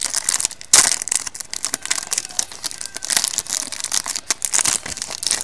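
Plastic wrapping crinkling and tearing as a box of trading cards and its packs are opened by hand: a continuous run of irregular crackles, with a louder crackle near the start.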